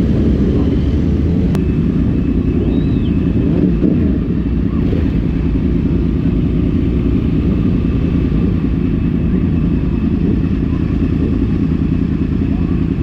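Sport motorcycle's engine running steadily at low revs as it rolls slowly, heard from on board the bike. About a second and a half in there is a sharp click, and a faint steady high whine starts with it.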